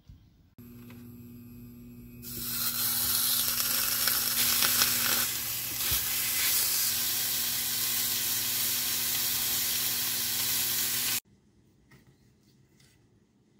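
Beef steak sizzling as it fries in a hot pan, a loud steady hiss that starts about two seconds in and cuts off abruptly near the end. A faint low hum sits under it from the start.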